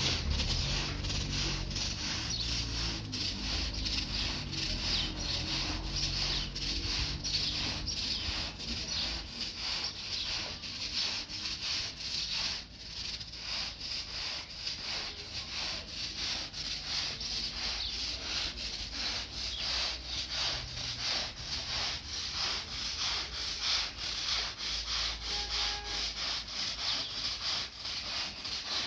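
Rhythmic rubbing strokes, a few a second, keeping up steadily.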